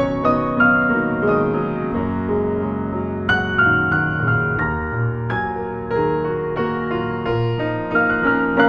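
Piano played four-hands as an improvised duet: chords and melody notes struck and left ringing over lower sustained notes.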